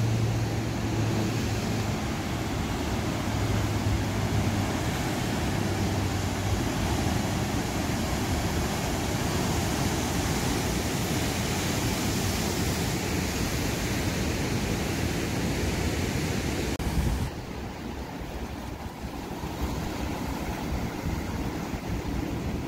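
Steady rushing noise of ocean surf with wind on the phone microphone. A low engine hum is mixed in during the first several seconds, and the sound changes abruptly, quieter and duller, about 17 seconds in.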